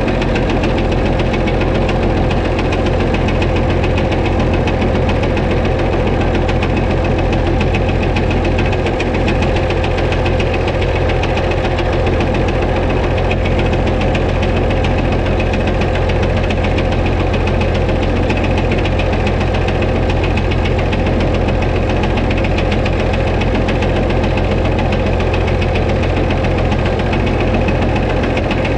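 White 2-155 tractor's Hercules diesel engine idling steadily with a hammering internal knock: the engine is due for a teardown, and the owner jokes it could throw a rod.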